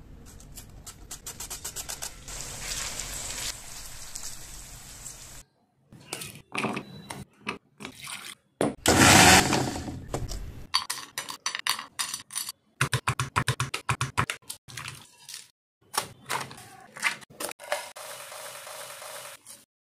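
Kitchen prep sounds in quick succession: an onion sliced on a mandoline slicer in rapid, even strokes, then an electric mixer grinder running for about two seconds, the loudest sound, followed by a string of quick clicks and taps.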